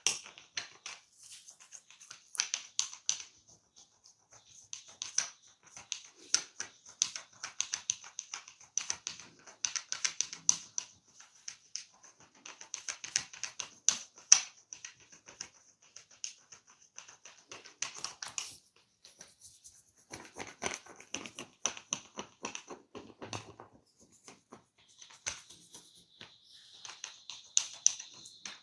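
Close-miked scratching and crackling against hair and skin from a barber's hands-on head and ear work, coming as spells of rapid scratchy clicks broken by short pauses.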